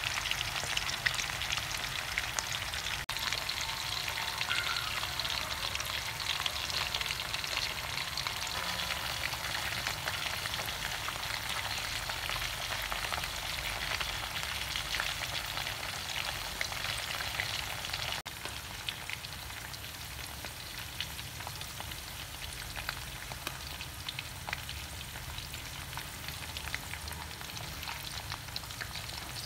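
Beef-wrapped long bean rolls shallow-frying in oil in a wok: a steady sizzle full of fine crackles, a little quieter after about two-thirds of the way through.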